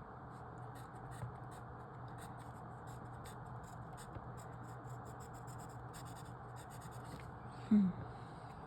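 Writing on paper: a run of short, light scratching strokes, like marks being made in a logic-puzzle grid. A brief hum of the voice near the end.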